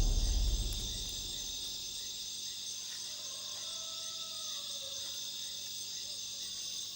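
Night chorus of crickets and other insects trilling steadily at a high pitch, with a deep rumble dying away over the first second.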